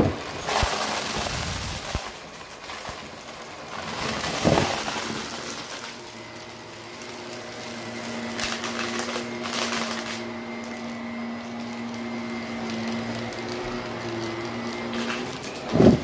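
Shark Navigator upright vacuum running on carpet, its brush roll and suction pulling up clumps of fluffy stuffing and balloon scraps, the noise swelling and easing as it is pushed back and forth. A sharp knock comes at the start and another near the end.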